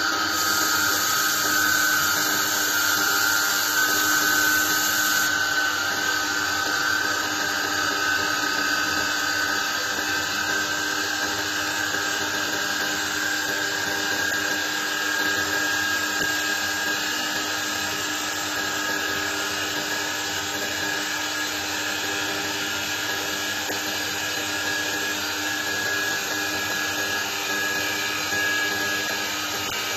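U-UA5025 mini CNC wood-turning lathe running, its spindle spinning a wooden makeup-brush handle while the tools cut it, a steady high-pitched whine over a rough cutting hiss.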